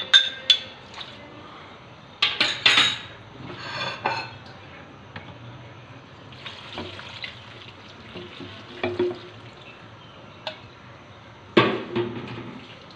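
Water poured from a bowl into a large steel cooking pot of raw meat and onions, with a few sharp clinks and knocks of the vessel against the pot, near the start, about two seconds in and near the end.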